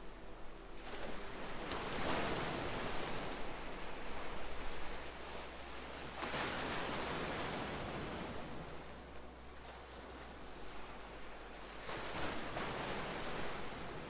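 Ocean surf: waves washing in and drawing back, three swells a few seconds apart.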